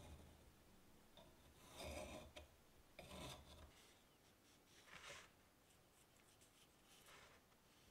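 Pencil scratching on paper: a handful of short, faint strokes as an axe head's outline is traced and lines are drawn.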